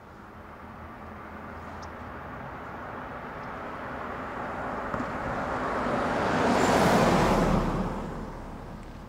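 A vehicle passing by: a rushing rumble that grows steadily louder, peaks about seven seconds in, then fades quickly.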